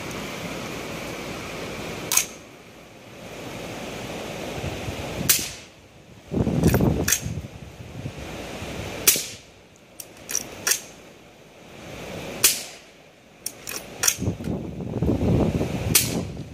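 Suppressed shots from an 18-inch Aero Precision .308 rifle with a Dead Air Sandman Ti suppressor, firing Cor-Bon 185-grain subsonic rounds. Five sharp shots come roughly three to four seconds apart, with fainter clicks between them.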